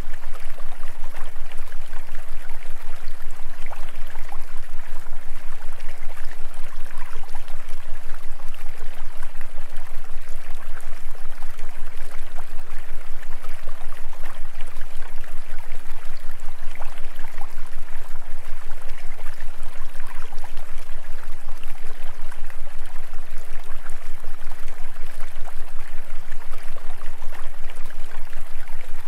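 Steady rushing sound of flowing stream water, unchanging, over a constant deep hum.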